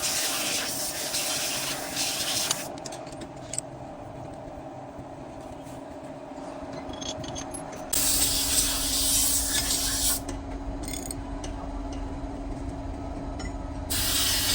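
Compressed air hissing in three long bursts, over a steady machine hum.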